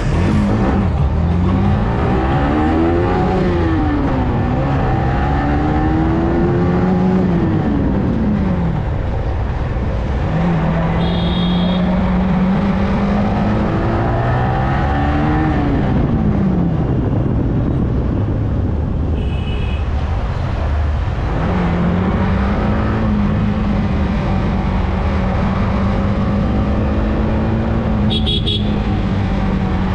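Yamaha R15M's single-cylinder engine running under way, its pitch rising and falling several times as it accelerates and rolls off, then holding steady at a cruise for the last third, over a steady rush of wind. Three short high beeps cut through, about a third of the way in, around two-thirds and near the end.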